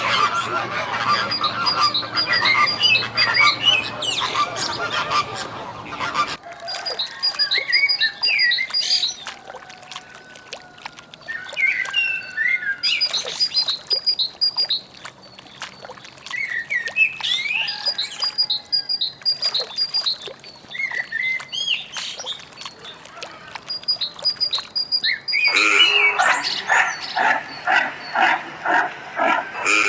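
Birds calling with short chirps and squawks, the sound changing abruptly about six seconds in. Near the end comes a run of rapid, evenly spaced calls.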